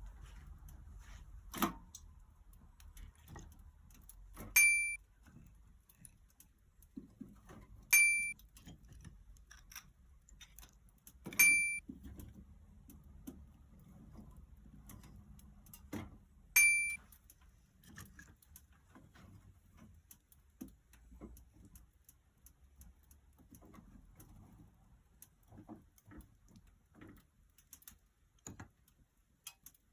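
Four short, loud electronic beeps a few seconds apart, among scattered light clicks and knocks over a faint low hum.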